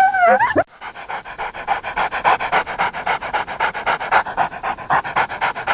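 A dog gives a brief whine with a wavering pitch, then pants rapidly and evenly, about six or seven breaths a second.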